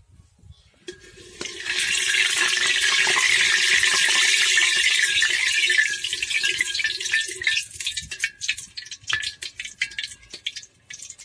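Hot oil sizzling in a brass pot as a ladle stirs in sugar to caramelise it for the curry's colour. A loud, steady sizzle starts about a second in, then after about five seconds it thins into scattered crackles and pops.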